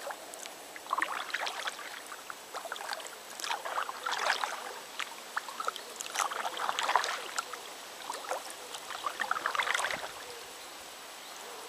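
Kayak paddle strokes: the blades dipping into and lifting out of the water, with splashes and drips coming in uneven clusters every second or two.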